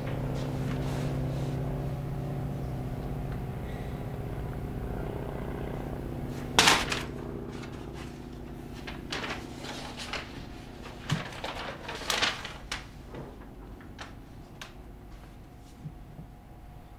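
A steady low hum made of several pitched tones fades away over the first six seconds or so. Then a sharp knock, followed by scattered clicks, taps and rustles of someone moving about a small room handling objects and paper.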